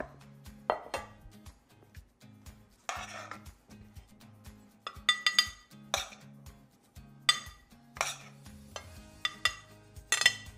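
Metal spoon scraping and clinking against a copper pot and a ceramic plate as toasted farfel is scooped out and served: a dozen or so separate clinks and scrapes, a few of them ringing briefly. Soft background music plays under them.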